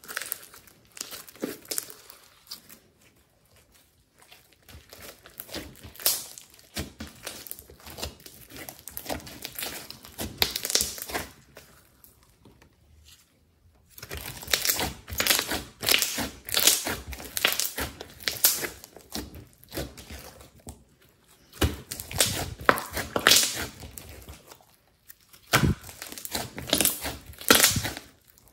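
Glossy slime being kneaded, stretched and squeezed by hand: irregular sticky clicking and crackling as it folds and its air pockets pop. It is sparse and quieter in the first half and busier and louder from about halfway.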